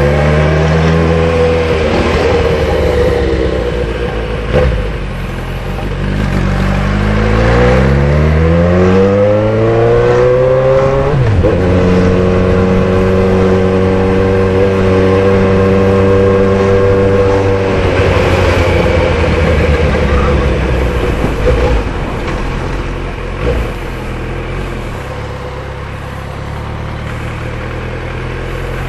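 Suzuki Bandit 1250S inline-four engine heard from on board while riding. Its pitch falls as it slows at first, climbs steadily as the bike accelerates from about six seconds in, holds level at a cruise, then drops to a lower, steady run a little past halfway.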